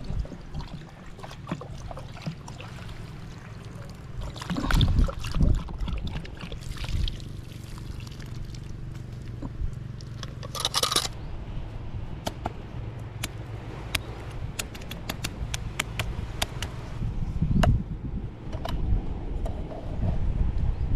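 Water being poured into a cooking pot of cleaned fish for paksiw, with splashing and a run of small clicks and taps in the middle, over a low rumble.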